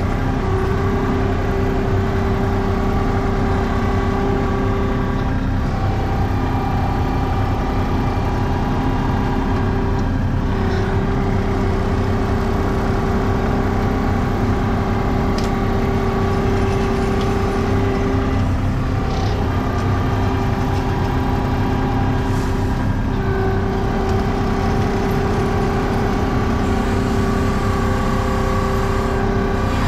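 ASV compact track loader's diesel engine running steadily, heard from the operator's seat, with a steady whine above it that drops out briefly several times and comes back.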